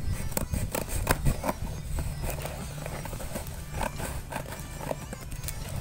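Scissors snipping through a parcel's plastic mailer wrapping and tape, giving an irregular run of short, crisp snips and crackles.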